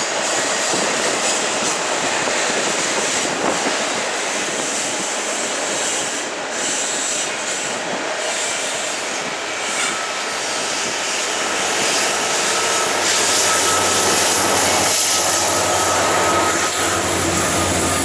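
Freight train rolling past: steel wheels on the rails and the rumble of the cars, with a thin, steady, high wheel squeal. A deeper rumble builds in the second half.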